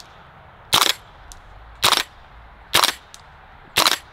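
KWA Radian gas blowback airsoft rifle running on green gas, firing four single shots about a second apart.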